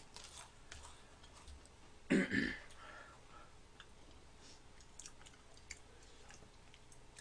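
Snack eating: chewing and crunching of a thin crisp cookie, heard as scattered small clicks. About two seconds in comes one short throaty sound from a person's throat.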